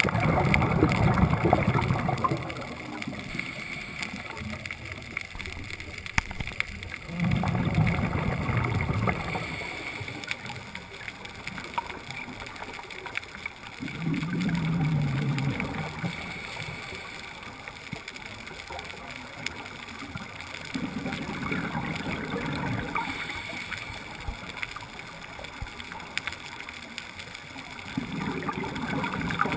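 A scuba diver breathing through a regulator underwater: five exhalations, each a rumbling, gurgling rush of bubbles about two to three seconds long, come about every seven seconds, with quieter breaths between them.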